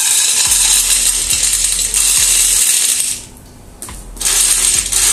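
River pebbles poured into a cooking pot, clattering against the pot and each other as they go in to be heated for stone-grilling. The pouring stops briefly about three seconds in, then a second pour clatters in.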